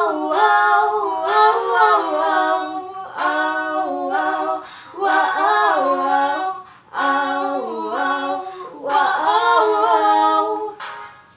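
Two teenage girls singing together, in five long held phrases with short breaths between them.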